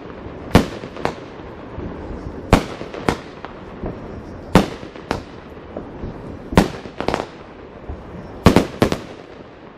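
Fireworks going off in a steady rhythm: five pairs of sharp bangs, the two in each pair about half a second apart and a new pair about every two seconds, with a short crackle after the fourth pair.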